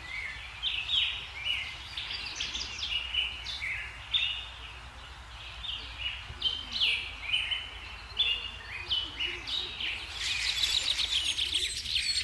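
Songbirds chirping and singing in quick runs of short, high notes. About ten seconds in, a denser, faster high chatter starts.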